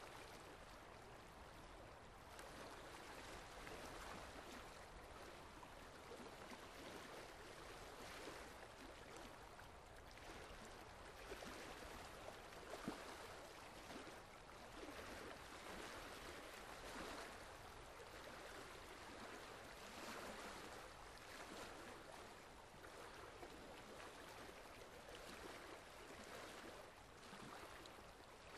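Faint, steady rush of water like a trickling stream, with a few soft drip-like ticks, the sharpest about 13 seconds in.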